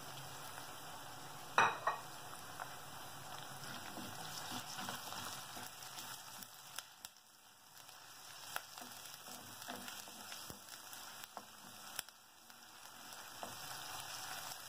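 Ginger, garlic, green chillies and curry leaves sizzling in hot oil in a clay chatti, sautéed until their raw smell goes. They are stirred with a wooden spatula that knocks against the pot a few times.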